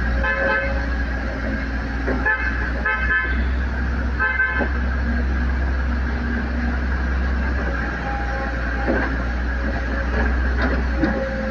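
Cat 320D excavator's diesel engine running with a steady low rumble. Four short horn-like toots sound during the first half.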